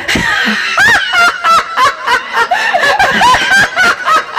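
A mimic imitating a particular person's laugh: a quick run of high-pitched laughs, about four or five a second, starting about a second in.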